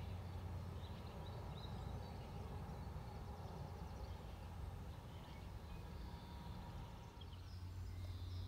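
Outdoor ambience: scattered short bird chirps over a steady low rumble.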